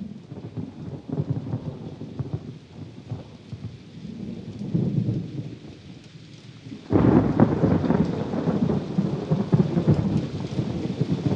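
Thunderstorm: rain with rolling rumbles of thunder, and a louder roll of thunder that starts abruptly about seven seconds in and carries on.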